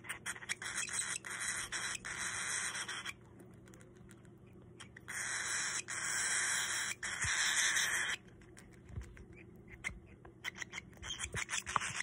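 Baby cockatiel's raspy, hissing begging calls while it takes food from a syringe, in two long stretches of about three seconds each, mixed with small quick clicks; a rapid run of clicks comes near the end.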